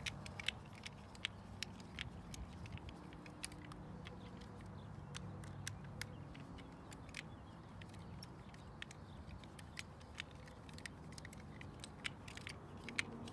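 Screwdriver tightening screws into the metal crank housing of a Treasure Garden AKZ patio umbrella: a scatter of small irregular clicks and ticks over a faint steady low background noise.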